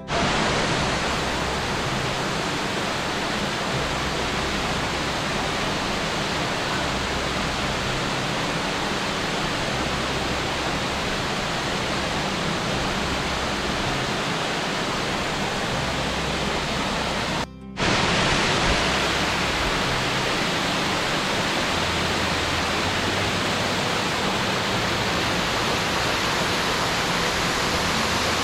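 Waterfall pouring, a steady dense rush of falling water. It drops out for a moment about seventeen seconds in and comes straight back.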